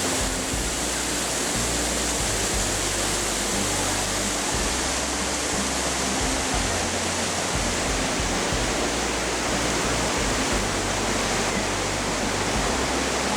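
Steady rush of Lodh Falls, a high tiered waterfall, filling the sound as an even roar of falling water. Underneath, a background music track plays low bass notes that change every second or two.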